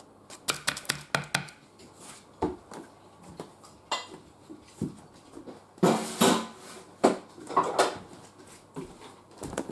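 Kitchen clatter: a silicone spatula knocking and scraping in a metal baking tin, a quick run of small knocks in the first second or so, then scattered louder clunks and clatters around the middle.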